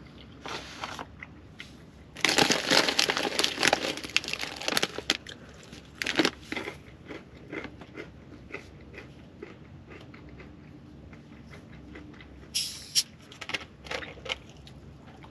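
Crinkling of a plastic snack bag and crunching of Gardettos snack mix, a dense crackle for about three seconds starting two seconds in, then scattered small crunches and clicks. Near the end come a short burst of noise and a few clicks while a glass soda bottle is handled.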